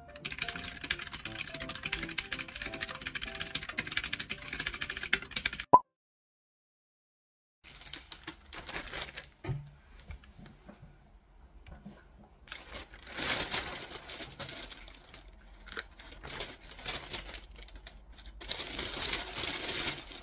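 Fast typing on a computer keyboard over quiet background music for about six seconds, ending with a sharp click and a sudden cut to silence. Then a plastic delivery bag rustles and crinkles in several bursts as takeout containers are taken out of it.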